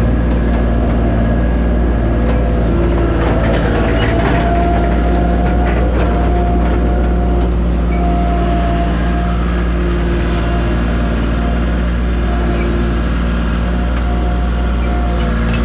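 Tractor engine running steadily, with a higher whine that comes and goes over it.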